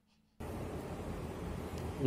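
After a moment of silence, a steady rushing noise starts about half a second in and holds even, with no clear tone or rhythm.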